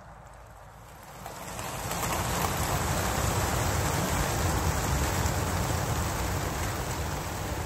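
Mass release of racing pigeons from a transport lorry's crates: the whirring rush of thousands of wingbeats swells up about a second in and stays loud and dense as the flock takes off.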